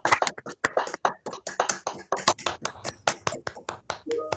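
A round of hand clapping heard through a video call, quick sharp claps several a second at an uneven pace, stopping near the end.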